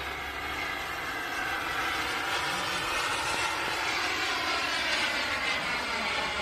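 Kingtech jet turbine of an RC Viperjet model jet at power, a steady rushing whine with a slowly shifting tone as the model climbs away.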